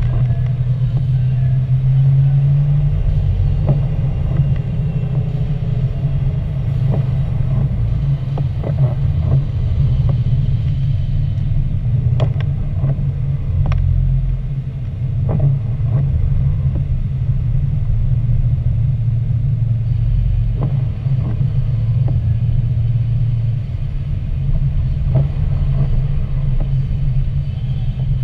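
Car driving on a wet road, heard from inside the cabin: a steady low rumble of engine and tyre noise, with occasional light ticks.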